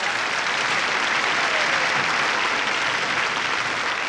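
Studio audience applauding, a dense steady clapping with no voice over it.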